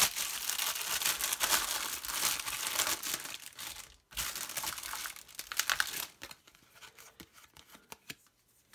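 Clear plastic wrapping on a magazine crinkling and tearing as it is pulled open. There is dense rustling for about four seconds, a short break with a click, more crinkling, then it tails off into a few light crackles.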